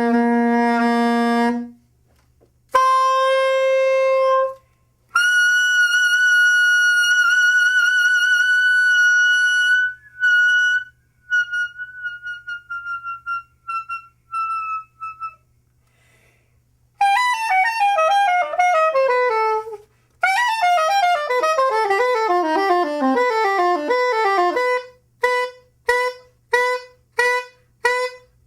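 Solo soprano saxophone improvising in separate phrases. It plays a low held note, then a higher one, then a long high note with vibrato that breaks into short fading notes. After a pause come quick falling runs, and near the end the same short staccato note repeats about twice a second.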